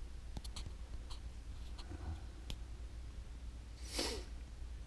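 Quiet room hum with a few faint handling clicks, and one short breathy sniff near the microphone about four seconds in.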